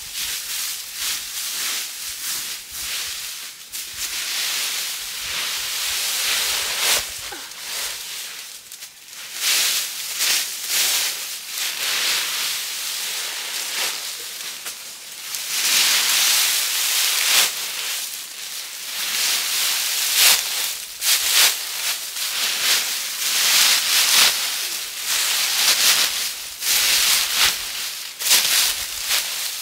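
Dry fallen leaves rustling and crackling as they are scooped up by hand and packed into a woven bamboo basket, in irregular bursts of crunching that grow louder in the second half.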